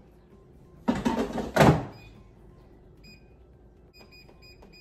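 Air fryer basket pushed back into the air fryer with a loud clatter ending in a clunk, about a second in, followed by a series of short, faint beeps from the air fryer's touch control panel as it is set for another cooking cycle.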